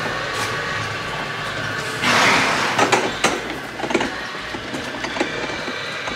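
Small wheels of a rollator converted into a hay cart rattling as it is pushed over brick paving, with a louder rushing burst about two seconds in and a few sharp knocks after it.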